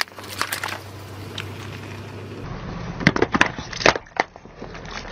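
Car tyre rolling over and crushing a plastic toy: sharp cracks and crunches, a few scattered at first, then a quick cluster of louder ones about three seconds in.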